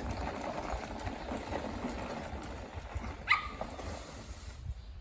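A dog barks once, a short sharp yelp about three seconds in, over steady background noise.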